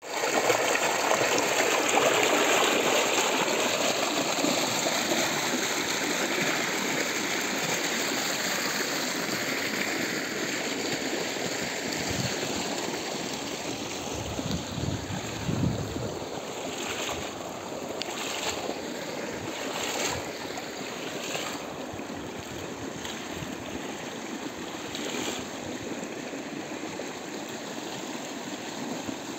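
Irrigation pump's outlet pipe gushing water into a concrete tank, a steady rushing of water that slowly fades as water runs on along a field channel. Later come several short sharp strikes of a spade chopping into soil and the base of a banana plant.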